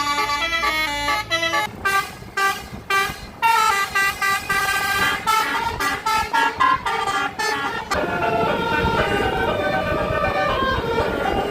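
Bus 'telolet' basuri multi-tone horn playing a melody. It gives a run of short quick toots, then longer notes stepping up and down in pitch. A low rumbling noise joins underneath about eight seconds in.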